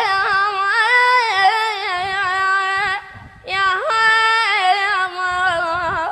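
A single high voice singing an Arabic mawwal, drawing out long ornamented melismatic phrases. It breaks off briefly about three seconds in, then takes up a second held phrase.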